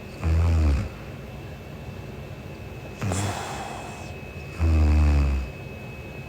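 A sleeping young woman snoring: a short, loud, low-pitched snore just after the start, a weaker one about three seconds in with a hiss of breath, and a longer loud snore about five seconds in.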